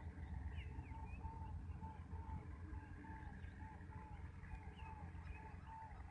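Spotted dove cooing: a run of short, soft coos at about the same pitch, roughly two a second. A few higher chirps from another bird sound over a steady low rumble.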